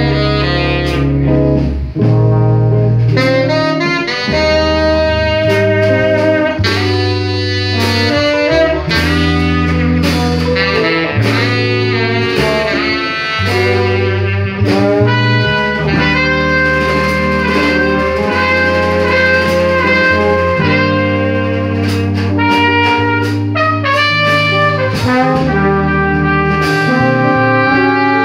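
Small jazz combo playing live: horn lines with a trombone among them, over a bass line and a drum kit.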